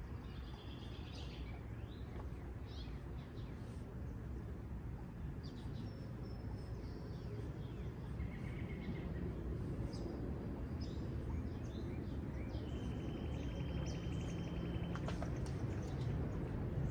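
Songbirds chirping and calling, with one rapid trill about two-thirds of the way in, over a low airplane rumble that grows steadily louder toward the end.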